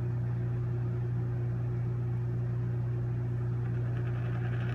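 A coin spinning on a rubbery cutting mat, its faint whirr over a steady low electrical hum; near the end the whirr turns to a brighter rattle as the coin wobbles toward stopping.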